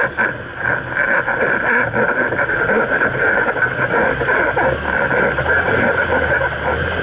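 Steady running noise of a Jeep Wrangler JKU Rubicon driving over sand, picked up by a camera mounted under the front axle: a continuous mix of drivetrain and tyres working in sand.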